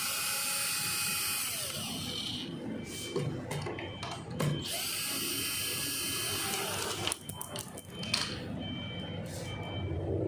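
Small electric motor whirring in spells of a couple of seconds at a time, with clicks and handling noise between the spells.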